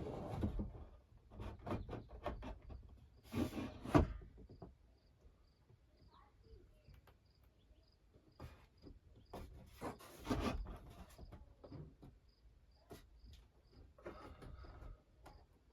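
Scattered knocks, clicks and short scraping and rustling handling sounds from work on a build, with a cricket chirping steadily at about two chirps a second.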